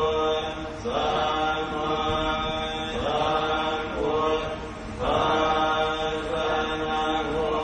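Theravada Buddhist chanting: voices recite in long phrases held on a steady pitch, with a new phrase starting about every two seconds.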